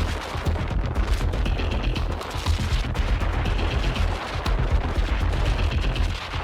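Rough sea: breaking waves with wind buffeting the microphone, a loud deep rumble full of dense crackling impacts.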